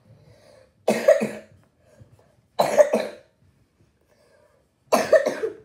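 A girl coughing three times, a couple of seconds apart, each cough a short loud burst.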